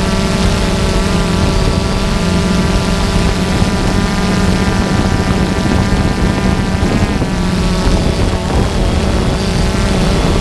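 Multirotor drone's electric motors and propellers buzzing steadily in flight, with a slight shift in pitch about seven seconds in.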